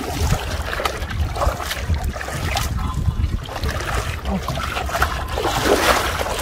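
Water sloshing and swishing around legs wading through shallow floodwater, with wind rumbling on the microphone.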